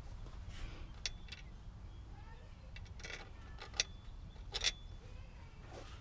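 A few scattered light metallic clinks and clicks from hand work on the car, the two loudest a little under four and about four and a half seconds in, over a low steady rumble.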